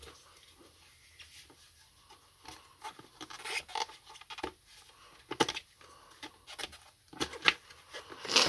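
Plastic tyre levers prying a stroller tyre off its wheel rim: irregular clicks and scraping of rubber against plastic and the rim, sparse at first and busier and louder in the second half, with a few sharper clicks near the end.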